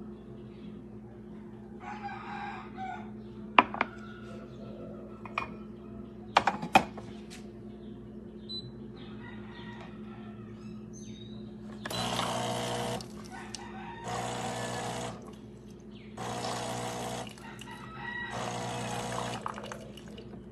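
An automatic espresso machine running with a steady hum, with a few sharp clicks and knocks in the first half, then four bursts of hissing about a second long each.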